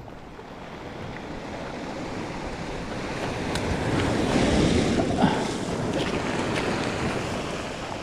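Surf washing up onto a cobble beach, swelling to a peak about halfway through and then easing off, with a few faint clicks over it.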